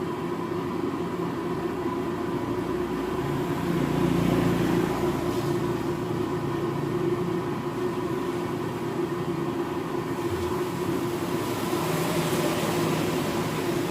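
A steady machine hum with constant pitch, swelling slightly a few seconds in.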